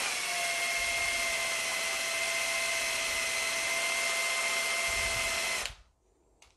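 Electric drill running steadily with a repurposed milk-frother shaft fitted with two timber paddles, mixing acrylic pouring paint thinned with water in a cup; it stops suddenly near the end.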